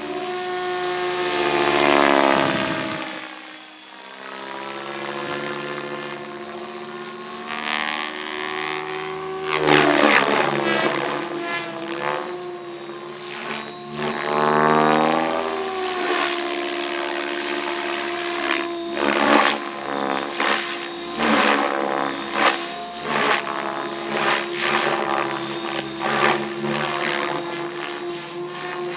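RC helicopter's motor and rotor blades running with a steady high whine and the blades thrashing the air. The sound swells and sweeps several times, then pulses in repeated surges over the last ten seconds.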